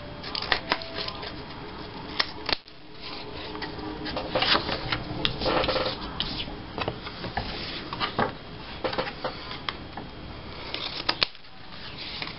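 Scissors snipping the corners off a paper tag: a run of short, sharp snips with paper rustling and sliding as the pieces are handled.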